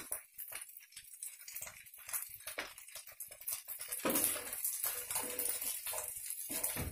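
Spatula scraping and stirring fried rice around a frying pan, with light scattered ticks at first and busier, louder stirring from about four seconds in.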